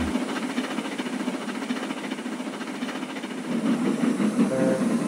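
Steam locomotive running with a train of loaded trucks: a steady running noise of the engine and wagons rolling along the rails.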